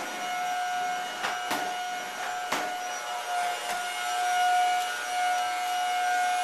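Vacuum cleaner motor running with a steady high whine, its pitch dipping slightly once midway. A few sharp knocks sound over it in the first four seconds.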